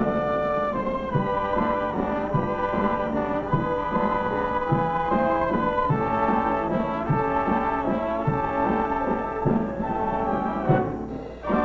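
Orchestral film-score music led by brass, with a steady beat. It dips briefly near the end before a new phrase comes in.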